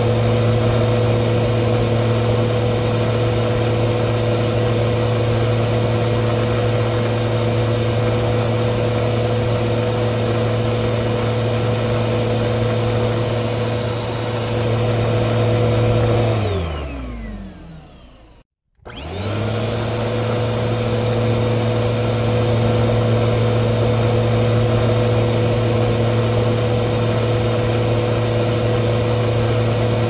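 Vacuum cleaner motor running steadily with a high whine. About sixteen seconds in it is switched off and winds down, falling in pitch to silence over about two seconds. It is then switched back on and spins up to full speed within a second.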